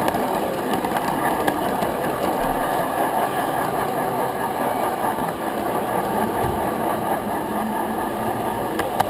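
Gauge 1 electric model train running along its track, heard from a camera riding on the train: a steady rumble of wheels on rails and motor, with a few light clicks.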